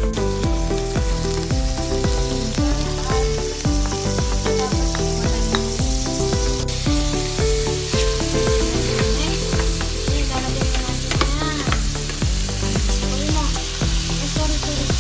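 Ground meat sizzling as it fries in a nonstick pan, stirred with a wooden spatula, with background music playing underneath.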